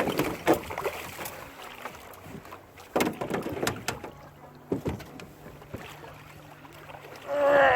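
Scattered knocks and thumps on a small fishing boat, with water sloshing, as a large sturgeon is brought alongside and handled. A short voice comes in near the end.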